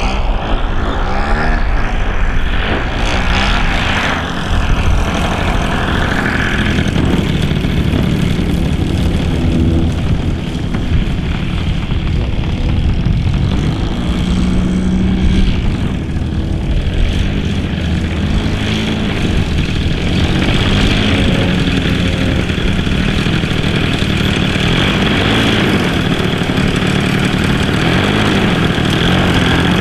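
A radio-controlled Yak 54 model's DA50 single-cylinder two-stroke petrol engine, fitted with a Zimmerman exhaust, drives its propeller with the pitch rising and falling as the throttle changes.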